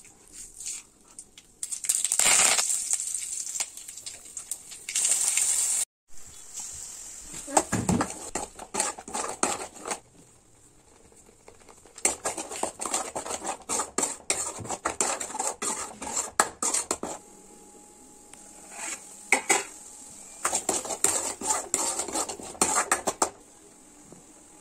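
Hot oil sizzling in an aluminium kadai, with loud hissing in the first few seconds. Then repeated runs of clinking and scraping as a steel ladle stirs thick chutney paste against the pan.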